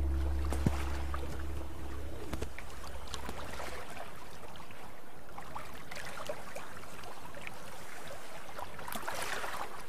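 Water lapping and trickling against a small sailboat's hull, with small splashes and clicks, as the last held chord of background music fades out in the first few seconds.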